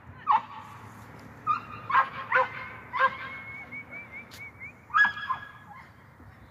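A dog yipping several times, with a drawn-out high whine in the middle.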